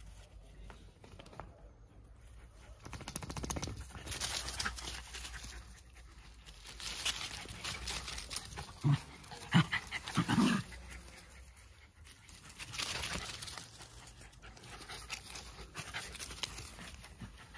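Two Jack Russell Terriers play-wrestling: bouts of scuffling noise, with three short, loud dog vocal sounds about nine to ten and a half seconds in. It is a play-fight between friendly dogs, not a real fight.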